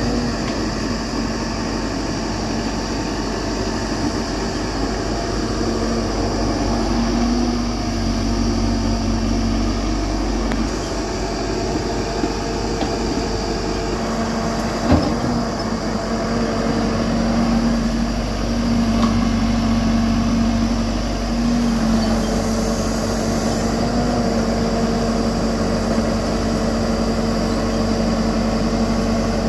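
Hyundai 215 tracked excavator's diesel engine running steadily as the machine digs and swings soil, with a steady whine over a low hum that drops off briefly and comes back a couple of times. A single sharp knock about halfway through.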